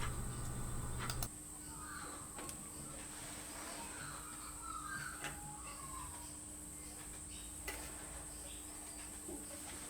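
A low hum that cuts off with a click about a second in, then faint bird calls, a few at a time, and light scattered clicks against a quiet background.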